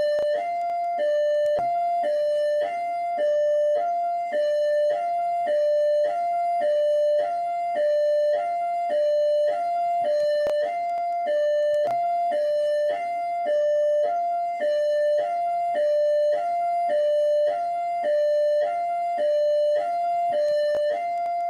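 Rio de Janeiro military police (PMERJ) siren in hi-lo mode: two steady tones alternating high and low, switching about every half-second.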